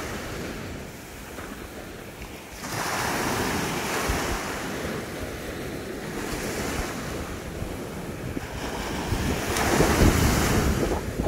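Sea waves breaking and washing up the beach, with wind rumbling on the microphone. The surf swells louder about three seconds in and again, most strongly, near the end.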